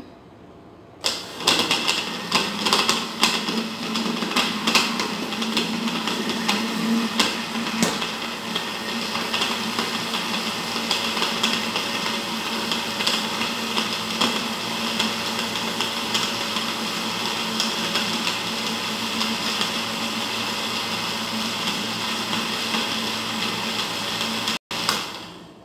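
Countertop electric blender running, mixing thin pancake batter. It starts about a second in, rough and clattery for the first several seconds, then settles to a steady whir, and cuts off near the end.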